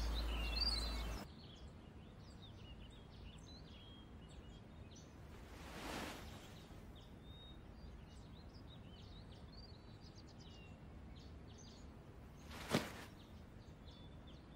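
Quiet ambience with small birds chirping faintly throughout, after the tail of louder music fades in the first second. A soft swell comes about six seconds in, and a brief sharp sound near the end.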